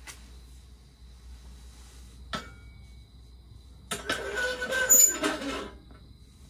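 A stainless saucepan clinks once about two seconds in. Then, about four seconds in, it is set down and shifted on the grate of a portable butane cassette stove, clattering and scraping with a metallic ring for about a second and a half. A faint steady high tone runs underneath.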